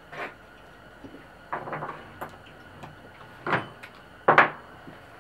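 A few short rustling, scraping handling noises, the loudest just past four seconds in, as a piston stop is threaded by hand into a small engine's spark plug hole and a tool is reached for.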